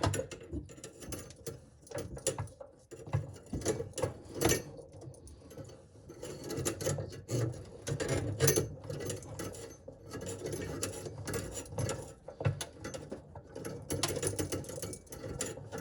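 Hand drain auger at work: the steel snake cable rattles and clicks in its drum and against the drain pipe in an irregular, continuous run of clicks.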